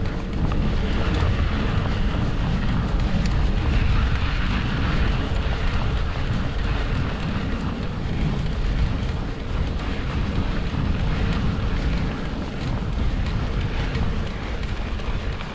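Wind buffeting the camera microphone over the rolling rumble and small rattles of a mountain bike riding a dirt trail; a steady, loud noise with no break.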